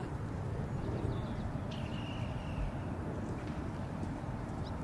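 Steady low rumble of wind buffeting the microphone outdoors, with one faint thin high tone about two seconds in.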